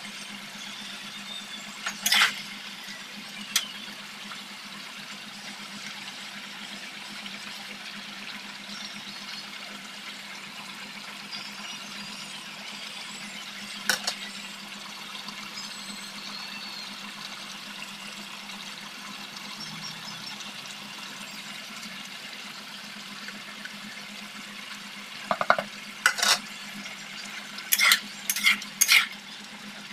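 Chicken pieces sizzling steadily in oil in a metal kadai, with a few sharp clinks of a metal spatula against the pan. Near the end, the spatula stirs and scrapes the pan in a quick run of clinks as ground spices are mixed into the meat.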